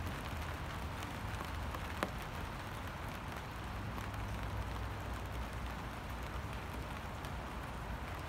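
Steady rainfall: a continuous hiss with scattered drop ticks over a low rumble, and one sharper tap about two seconds in.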